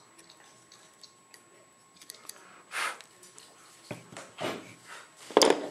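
Carving knife shaving wood off a carved head in a few short scraping cuts, the loudest near the end, with light clicks as the workpiece is handled.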